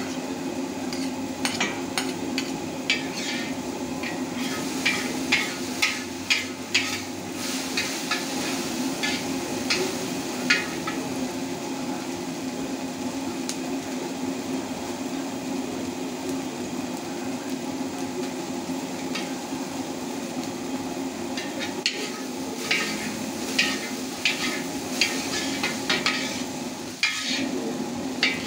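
Kwetiau (flat rice noodles) stir-fried in a steel wok: a metal ladle and spatula repeatedly clack and scrape against the wok over a steady hum and frying sizzle. The clacking comes in two spells, in the first third and the last third, with a calmer stretch of stirring between.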